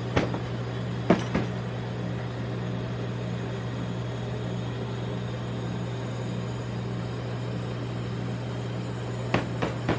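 Steady low hum of a rolled-ice-cream cold-plate machine's refrigeration unit, with a few sharp metal taps about a second in and again near the end.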